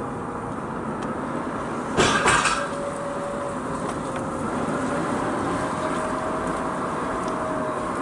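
Mazda RX-8's twin-rotor rotary engine pulling the car along, heard from inside the cabin: a steady engine tone that rises and falls a little with the revs, over road noise. A brief loud clatter about two seconds in.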